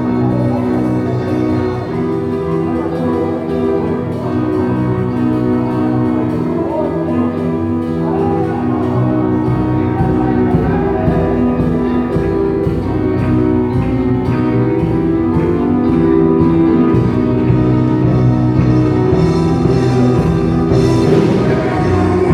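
Slow instrumental music with long held chords, playing from a portable party speaker.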